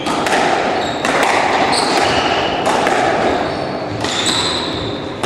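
Squash rally: a handful of sharp smacks as the ball is struck by rackets and hits the court walls, with shoes squeaking on the wooden court floor.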